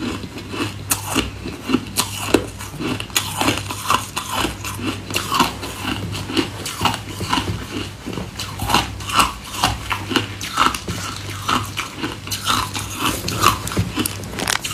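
Close-miked chewing and crunching of ice in the mouth: a dense, continuous run of sharp crunches, several a second, over a steady low hum.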